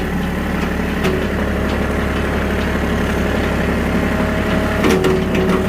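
Engine of the towing vehicle running steadily at idle-like low speed while it creeps forward dragging a skid steer on a chain.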